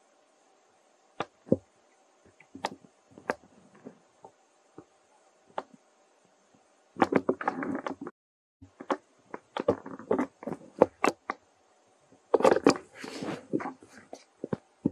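Dry leaves crackling and crunching as a baby macaque handles and chews them: scattered sharp clicks at first, then denser bursts of crunching in the second half.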